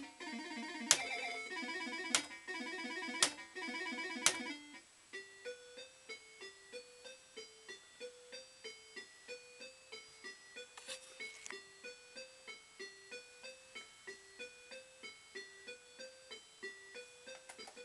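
Pound Sterling fruit machine's electronic sound playing a beeping tune, with sharp clicks about once a second for the first four seconds. About five seconds in it changes to a quieter tune of short beeps that step up and down and repeat in a loop.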